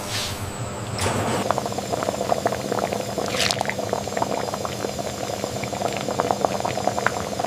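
A pot of broth bubbling at a rolling boil, with many small pops. A steady hiss runs through the first second.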